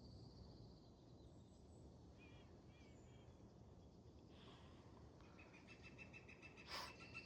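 Faint wild birdsong over a low steady outdoor rumble. A few short chirps come first; then from about two-thirds through a bird gives a rapid run of evenly repeated high notes, with one sharp short call near the end.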